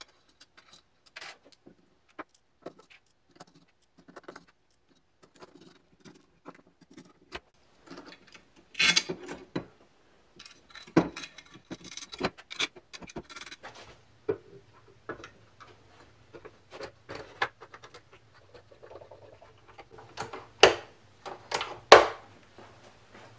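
Small metal parts handled on a workbench: scattered clicks, taps and rattles as nuts and screws are fitted into an aluminium T-slot extrusion and the toggle-clamp bar is moved about, with a few sharper metal knocks, the loudest near the end as the bar is set on the table.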